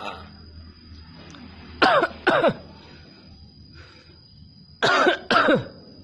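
Common hill myna giving two pairs of short, loud calls, one pair about two seconds in and another about three seconds later, each call sliding down in pitch.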